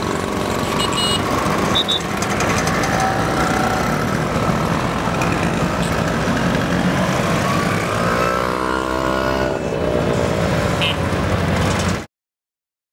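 A procession of Vespa scooters, many of them vintage two-stroke models, riding past with their engines running together. About eight seconds in, one engine's pitch rises and then falls as it passes close. The sound cuts off abruptly near the end.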